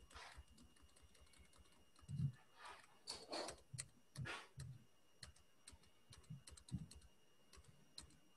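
Faint, scattered clicks and soft taps at a computer, irregular and a second or so apart, as handwritten ink on the screen is removed stroke by stroke.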